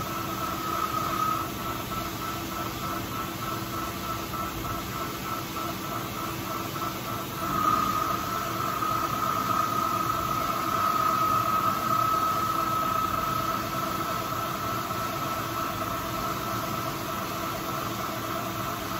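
Old manual lathe running with a steady hum and whine while turning a super stake driver. A louder, higher whine comes in about eight seconds in as the tool takes its cut, and eases off a few seconds before the end.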